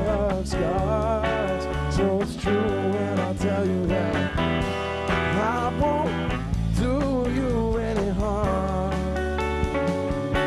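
Live band playing a country-blues rock song: guitars and bass under a wavering lead melody, with regular percussive hits.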